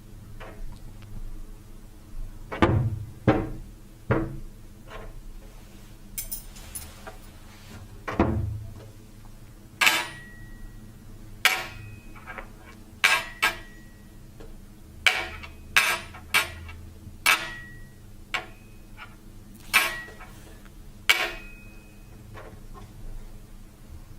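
Foley sound effects made by striking everyday objects: a run of separate knocks and clinks, with a few dull thuds in the first seconds. From about ten seconds in come around ten sharper hits, several leaving a brief high ring.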